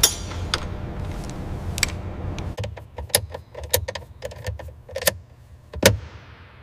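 A low rumble that drops away a little before halfway, then a run of irregular sharp metallic clicks and taps, like small hand tools working on metal fittings, the loudest near the end.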